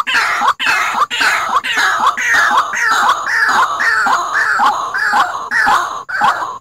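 White-breasted waterhen lure call: a loud, harsh falling note repeated about twice a second without pause, the bird's 'ruak-ruak' call played back to attract waterhens.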